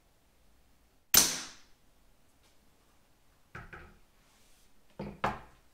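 A single shot from a Weihrauch HW97 spring-piston air rifle fitted with its silencer (moderator): one sharp report that dies away over about half a second. About two and a half seconds later come lighter knocks and then two sharp clicks as the rifle is handled and set down.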